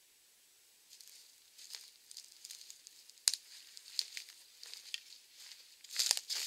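Footsteps crunching through dry sticks, twigs and dead leaves, starting about a second in, with a sharp twig snap partway through, getting louder and busier near the end as the walker comes closer.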